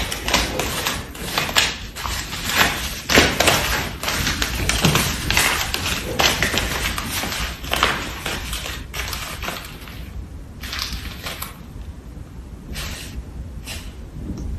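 Jack Russell Terrier puppy chewing and tugging at a crumpled piece of paper: irregular crinkling and crackling, busy for about the first ten seconds, then sparser.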